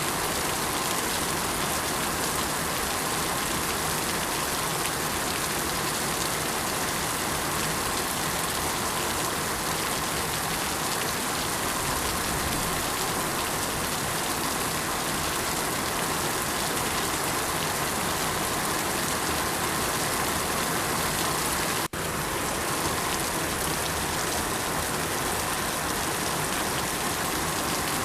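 Steady rain falling, with a momentary dropout about two-thirds of the way through.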